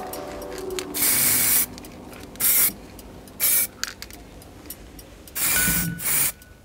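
Aerosol spray can hissing in several short bursts as a coat is sprayed on, the longest burst near the end.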